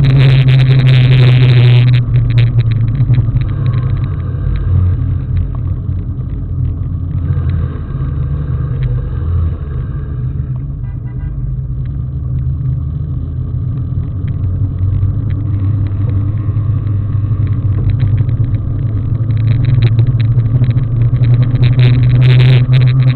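Steady low rumble with a strong hum: travel noise picked up by a camera riding on a moving vehicle. It eases off after about two seconds and grows louder again near the end.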